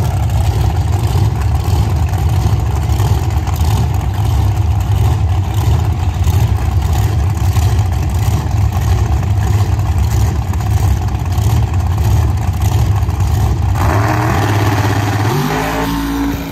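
Drag-racing car engine running loud and steady. Near the end the sound changes and an engine revs up, its pitch rising.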